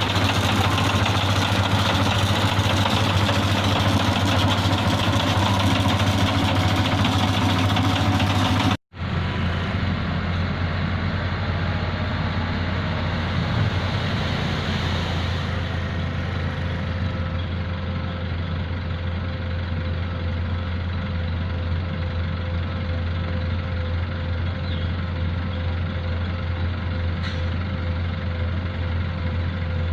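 Heavy diesel machinery engines of a road-paving job running steadily. The sound drops out abruptly about nine seconds in and resumes as a similar, slightly quieter engine drone.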